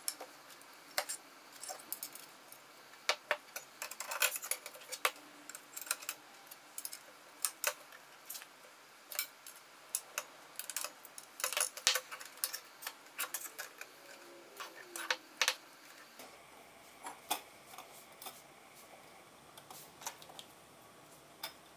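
Irregular light metallic clicks and clinks of stainless-steel tong parts, washers and pins being handled and fitted together by hand, with pliers working at a pin.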